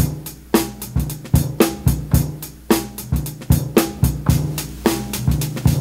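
A sampled boom-bap drum break playing from a pad on an Akai MPC One: kick, snare and hi-hat hits in a repeating pattern over a low bass tone. This is the clean version, without the SP-303's lo-fi setting, vinyl sim compression or vinyl noise.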